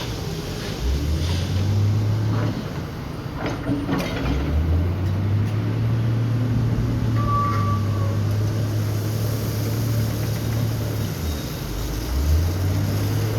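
JCB backhoe loader's diesel engine running, revving up and holding under hydraulic load three times and dropping back to idle between. A few sharp knocks come about four seconds in.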